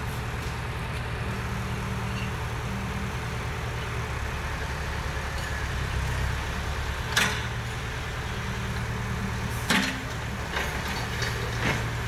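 Case Super K backhoe loader's diesel engine running steadily, with two sharp knocks about seven and ten seconds in.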